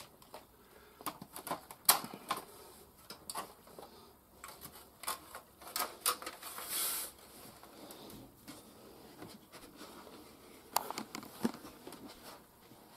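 Irregular small plastic clicks and taps from hands handling an opened Amiga 500's keyboard and circuit board, with a brief rustle about seven seconds in.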